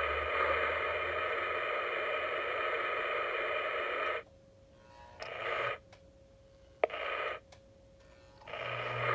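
Sound effects from the onboard RailSounds speaker of a Lionel Polar Express O-gauge steam locomotive standing still before it moves off: a steady hiss of about four seconds, two short bursts later on, and a steady sound with a low hum starting near the end.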